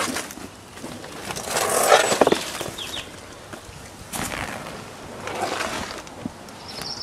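Rustling and crinkling of a deflated inflatable canoe's PVC hull and nylon fabric cover being handled, in a few bursts. The longest and loudest comes about two seconds in, with shorter ones around four and five and a half seconds.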